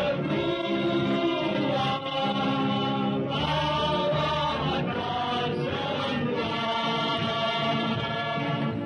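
Choral music: voices singing long, held notes together.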